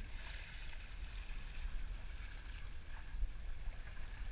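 Water rushing and hissing along the bow of a sailing boat under way, over a steady low wind rumble on the microphone.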